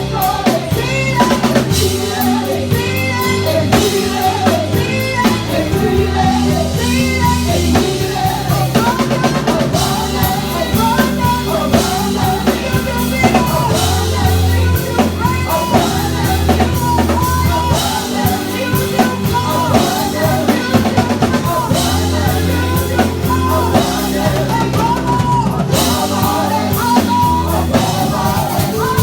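Live church worship music: voices singing over a band with a steady drum-kit beat and held bass notes.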